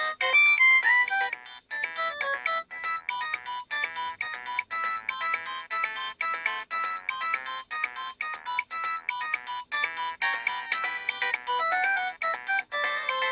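Nokia 5140 polyphonic ringtone playing a fast, busy melody with several notes sounding at once.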